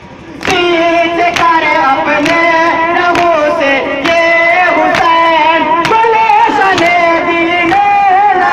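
Mourners chanting a nauha (Muharram lament) together, entering loudly about half a second in, with sharp hand strikes on the chest (matam) keeping time about once a second.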